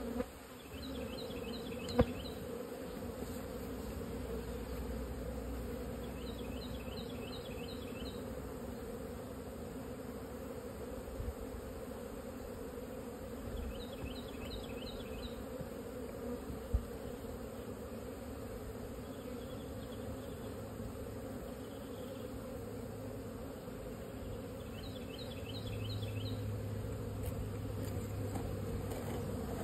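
Honeybees buzzing in flight around the hive entrance: a steady, dense hum. A short high chirping trill repeats about every six seconds, and there is a sharp knock about two seconds in and another later.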